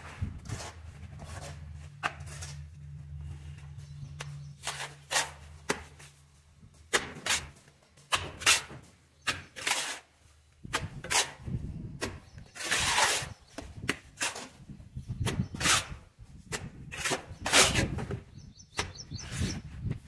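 Steel mason's trowel scraping and scooping cement mortar in a metal pan and slapping it onto a brick wall: a string of separate scrapes and slaps at an uneven pace, a few of them longer. A low steady hum underneath stops about a third of the way in.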